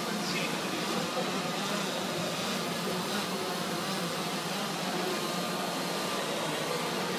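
DJI Phantom quadcopter hovering, its propellers giving a steady, even buzzing hum against the background noise of a large hall.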